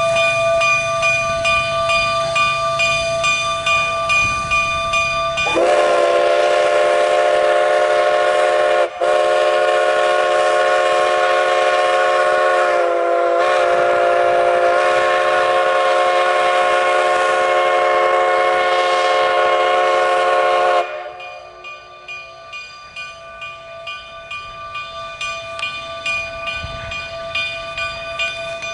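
Rio Grande K-36 No. 484, a narrow-gauge 2-8-2 steam locomotive, working slowly with a rhythmic exhaust chuff. About five seconds in it sounds one long blast of its chime steam whistle, lasting about fifteen seconds, with a brief break and a slight dip in pitch along the way, before the chuffing carries on.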